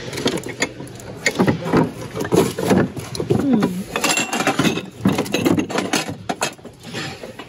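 Glass mugs, glasses and bottles clinking and knocking together as a gloved hand rummages through a bin of glassware, a busy run of sharp clicks.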